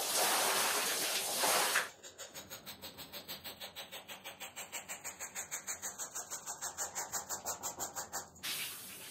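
Water from a garden-hose spray nozzle hissing onto a muddy doormat for the first two seconds. Then a long-handled scrub brush works the soapy mat in fast, even strokes, about six a second, sped up. Near the end the hose spray hisses again.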